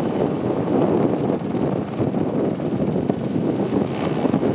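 Squirrel helicopter flying low overhead: steady rotor and engine noise with a fast, even rotor beat and a faint high whine.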